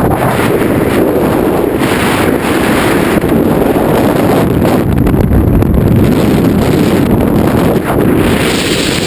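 Heavy wind rushing over a microphone held outside a moving car at road speed, a steady loud roar with the car's road noise beneath it.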